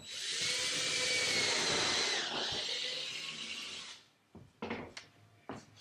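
Power drill running for about four seconds, its motor pitch dipping briefly near the middle, then a few light knocks.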